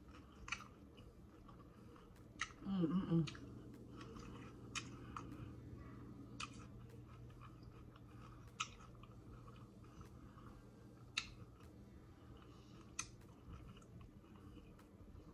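Close-miked chewing of a crunchy hard-shell taco, with sharp crisp crackles every second or two and a brief hum about three seconds in.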